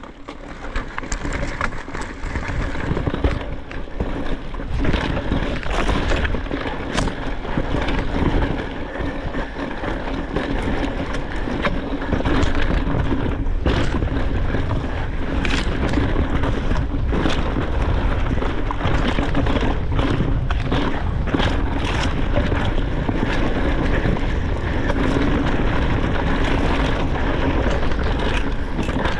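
Deviate high-pivot full-suspension mountain bike ridden fast down a rocky trail: steady tyre rumble with frequent sharp rattles and knocks as the bike goes over rocks, and wind on the microphone. The sound gets loud about a second in as the bike gets moving.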